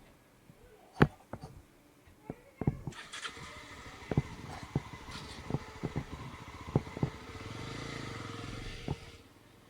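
A motor vehicle driving over a rough, muddy off-road track: a dozen sharp knocks and thumps from the vehicle jolting over the ruts. Engine noise sets in about three seconds in and builds to a steady hum late on, before falling away just before the end.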